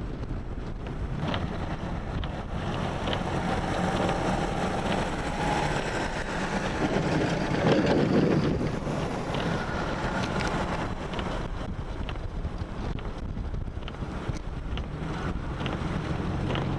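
Strong blizzard wind buffeting the microphone over a steady low rumble of vehicle traffic, swelling louder about halfway through.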